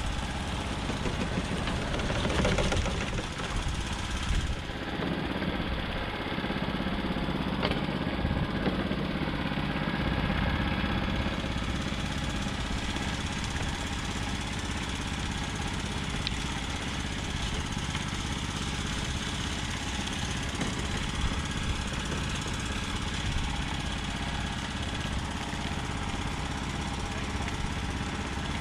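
Small engine running steadily, an even mechanical hum. A short splash of falling water about two seconds in.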